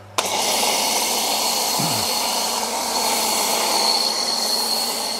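Pressure washer spraying a spray-on sealant through a foam lance: a loud, steady hiss with a thin high whistle, starting suddenly just after the beginning.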